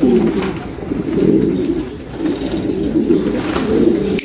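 Domestic fancy pigeons cooing in a loft, several low coos overlapping without a break.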